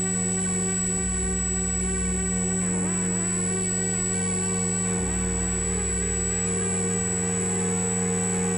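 Live electronic noise music from synthesizer and electronics: a buzzing drone of several held tones over a low throb that changes every second or two. Warbling, wavering sounds join about three seconds in.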